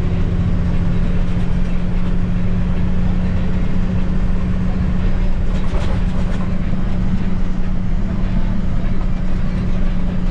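Vehicle engine running steadily with a constant low hum and rumble.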